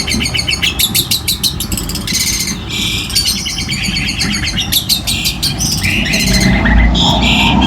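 Long-tailed shrike (cendet) singing fast runs of short, harsh, repeated high notes and trills over a low background rumble.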